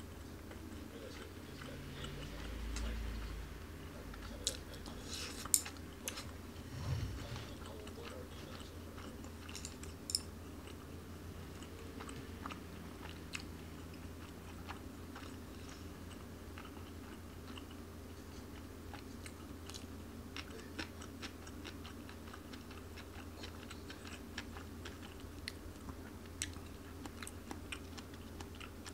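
A person chewing food quietly, with small scattered clicks of wooden chopsticks picking at a plastic bento tray, over a steady low hum.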